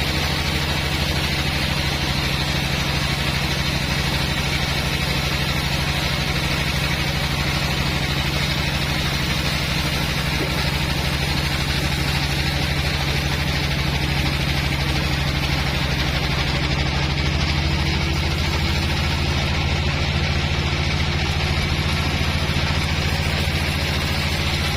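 Engine of a sawmill bandsaw machine running steadily at an even speed.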